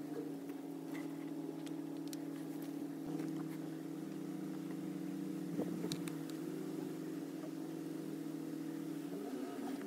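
An engine running steadily at an even pitch, with a few faint clicks over it.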